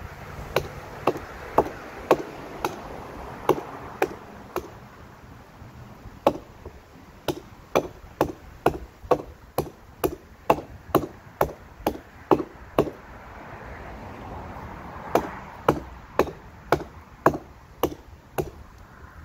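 Hatchet chopping into a fallen tree limb: sharp chops about two a second, in three runs with short pauses between them.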